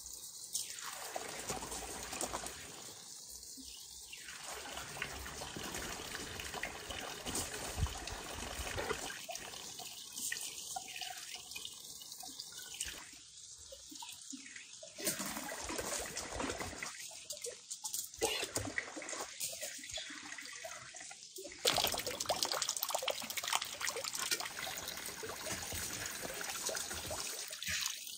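Running water, steady, with many small irregular splashes and drips.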